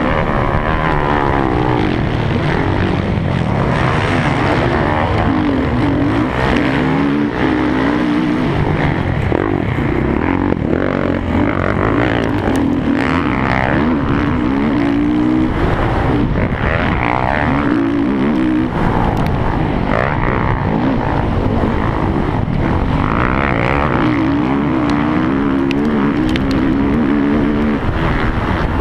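Motocross bike engine heard from on board, revving hard and dropping back again and again as the rider accelerates and backs off around a dirt track.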